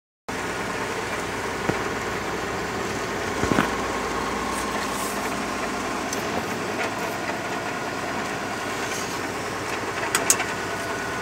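Steady drone of a tractor-trailer truck's engine and tyre noise heard inside the cab while driving slowly on a snow-covered highway. A few brief knocks come about two, three and a half, and ten seconds in.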